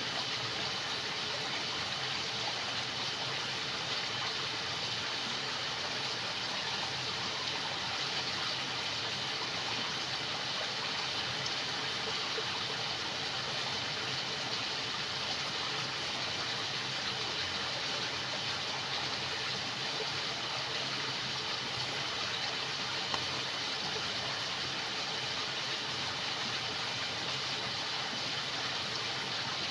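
Jungle night ambience: a steady rush of stream water with a continuous chorus of crickets and frogs over it.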